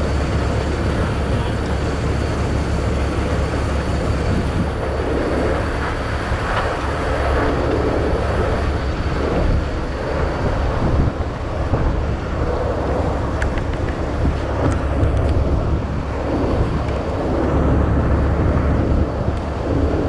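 Heavy wrecker's diesel engine running steadily, a deep even rumble, with a few faint clicks of rigging hardware.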